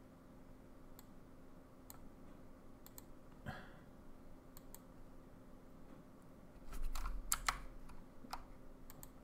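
Faint computer mouse and keyboard clicks: single clicks a second or so apart, then a quick run of louder clicks with a low thump about seven seconds in, over a faint steady hum.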